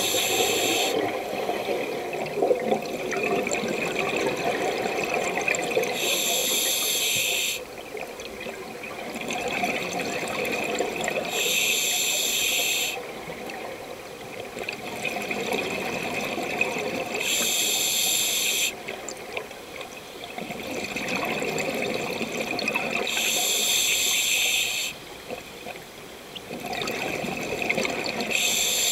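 Scuba diver breathing underwater through a demand regulator: a hissing inhale about every six seconds, alternating with long, bubbling exhales.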